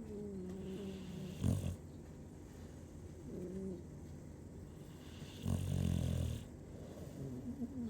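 A sleeper snoring: a short snore about a second and a half in and a longer one about five and a half seconds in, with a thin whistling tone on the breaths in between, sliding down in pitch.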